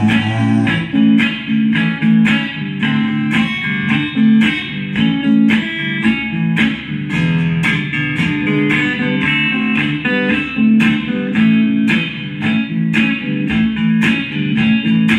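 Solo Crafter guitar playing a blues instrumental break without singing: a steady rhythm of picked notes over a repeating bass figure.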